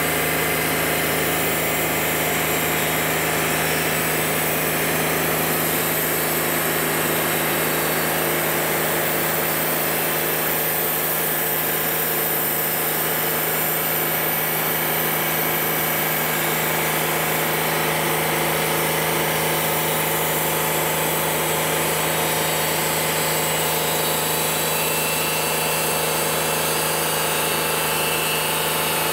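Engine of a Wood-Mizer portable sawmill running steadily at a constant pitch, an even mechanical hum with no change.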